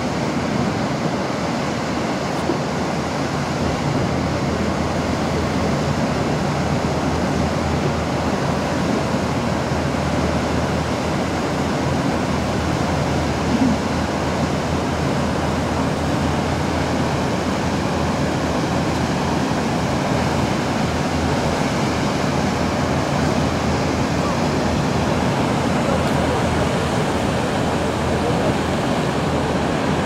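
Steady rushing of a waterfall pouring into a fjord, over the low, steady hum of a boat's engine.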